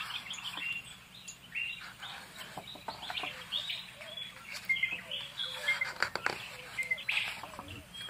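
Jungle ambience of many birds chirping and calling, in short rising and falling chirps, with a few soft clicks and rustles as the paper pages of a picture book are turned.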